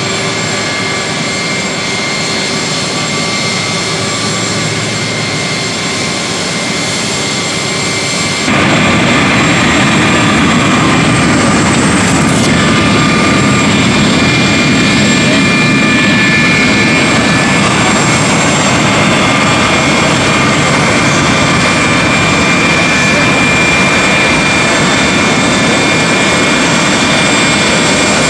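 Pratt & Whitney TF33 turbofans of a Boeing VC-137C (military 707) running as the jet taxis: a steady rushing noise with high, steady whining tones over it. About eight seconds in the sound steps up louder and holds there.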